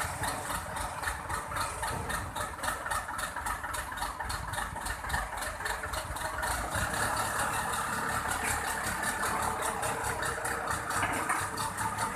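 Forklift engine running steadily at low revs, with an even, rapid clatter.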